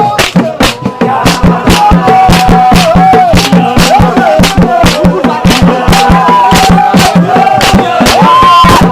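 Loud music with a quick, steady drum beat and a voice singing over it.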